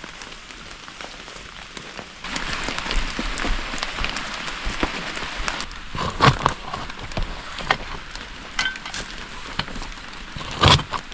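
Branches and dry leaves being handled: a rustling with many small snaps and clicks, rising in the middle, and two louder knocks of wood, one about six seconds in and one near the end.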